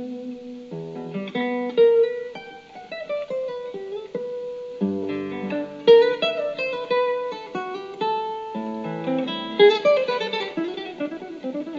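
Background music: an acoustic guitar piece of quick plucked notes and occasional strums.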